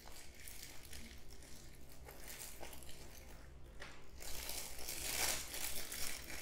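Bubble wrap and a plastic bag crinkling and rustling as hands unwrap a camera lens, with irregular crackles that grow louder about four seconds in.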